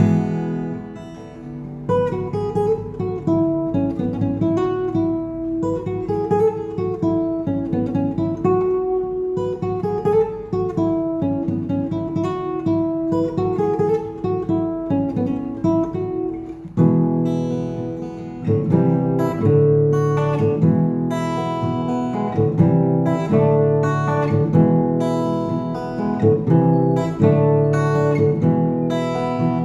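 Background music: acoustic guitar, picked and strummed, turning fuller and more rhythmic about two-thirds of the way through.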